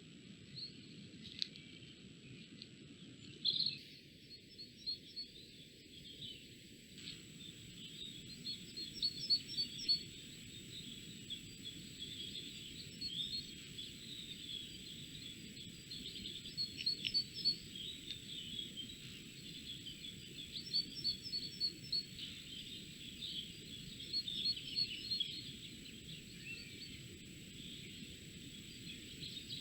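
Wild songbirds singing and calling in woodland: scattered chirps, with short, quick song phrases repeating every few seconds, over a steady low background hiss.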